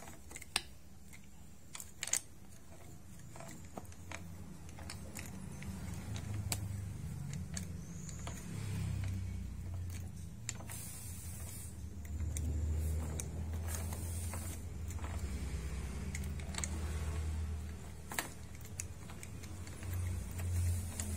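Scattered light clicks and clinks of the rack-and-pinion steering assembly being handled and its rack slid through the housing, over a low rumble that swells and fades.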